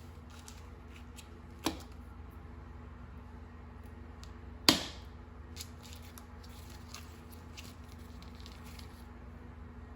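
Kitchen handling sounds as pieces of butter are set on top of stuffed apples in a dish: light scattered ticks and clicks, with two sharp knocks, one about a second and a half in and a louder one about halfway through. A steady low hum runs underneath.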